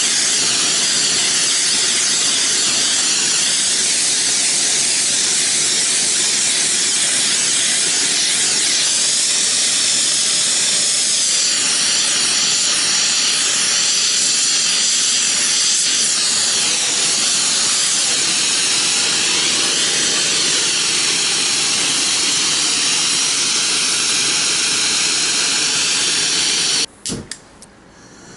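A workshop tool hissing steadily and loudly, with a high whine that wavers in pitch. It stops abruptly near the end.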